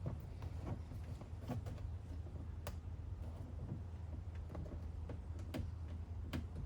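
Scattered light clicks and taps at an irregular pace from hands working on the van's interior door trim, over a steady low hum.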